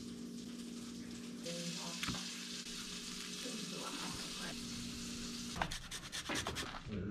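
Quiet kitchen food preparation: vermilion snapper fillets being handled and pressed into panko breading over a low steady hum, then a run of short scraping strokes near the end as a lime is zested on a hand grater.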